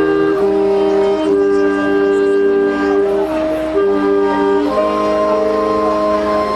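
School wind band of brass and woodwinds playing a slow, melodic piece: sustained chords that move to new notes every second or so.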